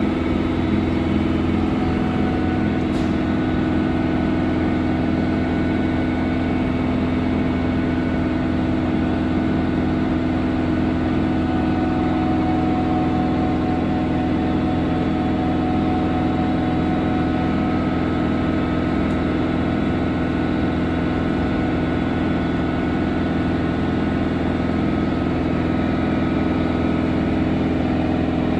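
Air compressor of an SNCF BB 7200-class electric locomotive running steadily with the locomotive at a standstill, a constant mechanical hum.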